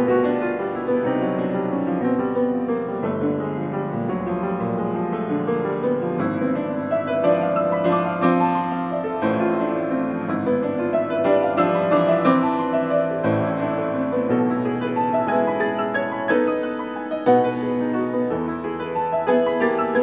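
Grand piano played solo, a continuous run of overlapping notes and chords.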